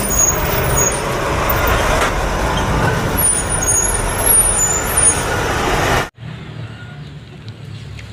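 Heavy truck running: a loud, noisy rumble with hiss that cuts off abruptly about six seconds in, leaving only a faint low background.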